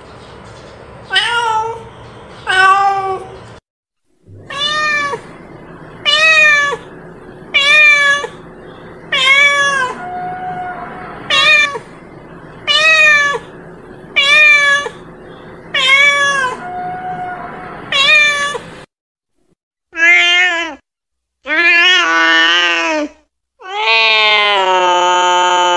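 A domestic cat meowing over and over: a dozen or so short meows about one and a half seconds apart. After a brief break come longer, drawn-out meows, the last held for a couple of seconds.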